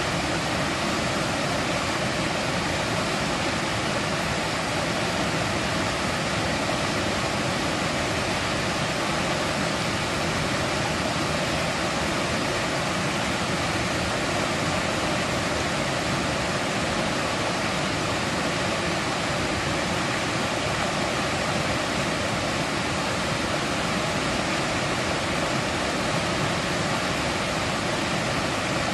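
Mountain stream rushing steadily over rocks, a dense, even wash of water noise with no letup.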